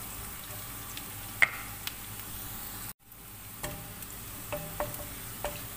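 Chopped onion and garlic sizzling in oil in a nonstick wok while being stirred with a wooden spoon. There is a sharp click about a second and a half in, and the sound cuts out for an instant about halfway.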